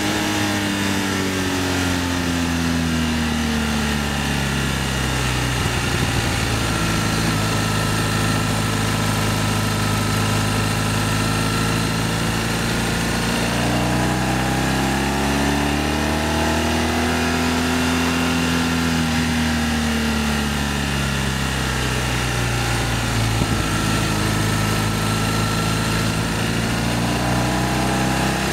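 BMW R1200ST motorcycle's boxer twin engine running under way, its pitch falling as the rider eases off, climbing again midway, falling, and climbing once more near the end, over a steady rush of wind and road noise.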